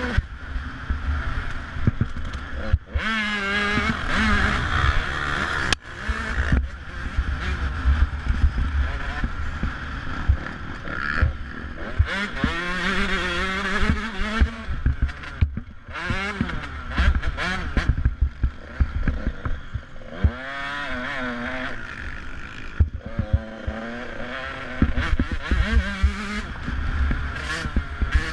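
KTM dirt bike engine revving hard and easing off again and again as it runs up and down through the gears at race pace, its pitch rising and falling, over a heavy low rumble of wind on the microphone and scattered knocks from the rough track.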